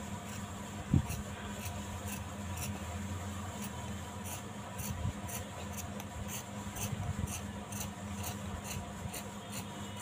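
Scissors cutting through cloth in a steady run of short snips. There is one dull thump about a second in.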